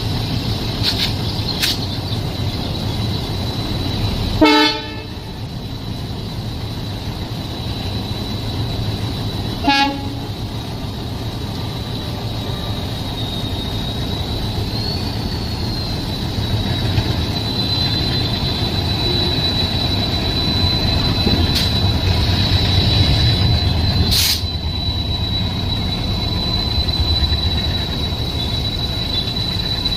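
Train running with a steady low rumble and a thin high whine, sounding two short horn blasts: one about four and a half seconds in and a shorter one near ten seconds.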